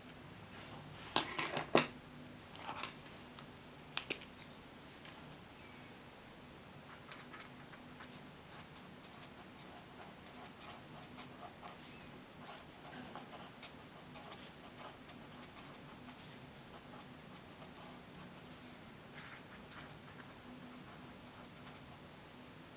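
Pens handled and used at a desk: a few sharp clicks and clacks in the first four seconds as pens are set down and picked up, then light, intermittent scratching of a felt-tip pen writing on notebook paper over a faint steady room hum.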